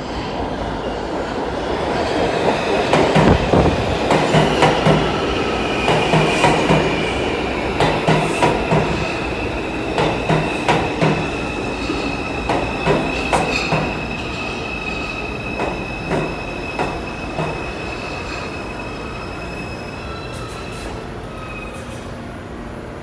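New York City Subway R142 train pulling into the station and braking to a stop: rhythmic clatter of wheels over rail joints that spreads out as the train slows, over a rumble and a steady high wheel squeal. The sound dies down in the last few seconds as the train halts.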